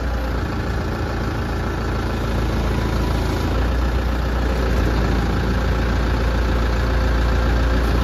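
New Holland TD5040 tractor's 85 hp diesel engine idling with a steady drone. From about three and a half seconds in, the low drone grows stronger and a little louder as the hydraulic remote is worked to lift the batwing mower's wing.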